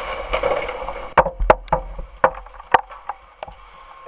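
Motorcycle crash off the road into dry brush: a rapid string of about seven sharp knocks and cracks over two seconds or so, starting about a second in, as the bike and rider tumble through the undergrowth and branches.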